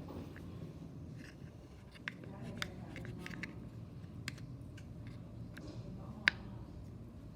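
Scattered light clicks and taps of a utensil against a bowl while a tapioca-starch and conditioner slime mixture is stirred, with one sharper click about six seconds in, over a low steady hum.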